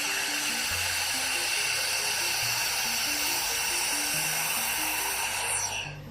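A high-speed motor runs with a steady airy hiss and a high whine, then winds down, its pitch falling, about five and a half seconds in. Background music plays underneath.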